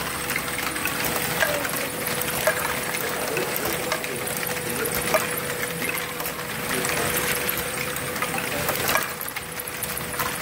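Lego Great Ball Contraption modules running: a steady electric-motor hum under continuous clicking and clattering of plastic gears, lift mechanisms and small plastic balls.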